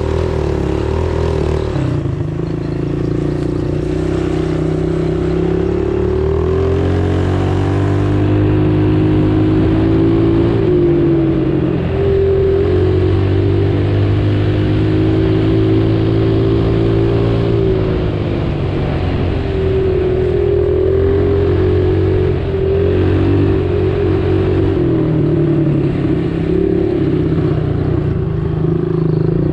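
Motor vehicle engine running continuously, its pitch shifting up and down in steps every few seconds as the revs change.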